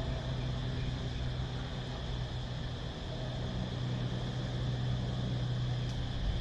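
Cicadas buzzing in a steady high drone over a steady low rumble.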